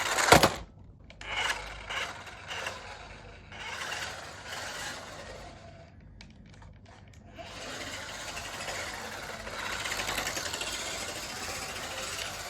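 Small electric motor and gears of a vintage General Lee RC toy car whirring as it drives, in short runs and then a longer steady run from about seven seconds in, with a sharp knock right at the start and a brief pause with a few clicks in the middle. The motor sounds like it has had a long life.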